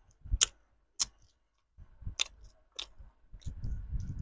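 Close-miked mouth sounds of a person chewing, with about four sharp wet mouth clicks. Near the end comes a longer, fuller stretch as a soft bread bun is bitten into and chewed.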